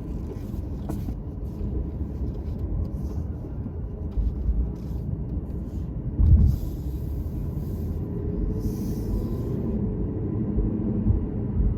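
Low, steady vehicle rumble, with a heavy thump about six seconds in followed by two short hisses.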